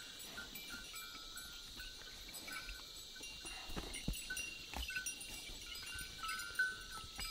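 Plough bullocks' neck bells tinkling faintly and irregularly as the pair works the field, with a few soft knocks around the middle.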